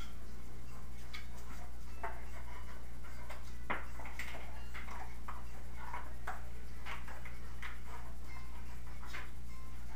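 A dog walking, its claws clicking and tapping irregularly on a tile floor, over a steady low hum.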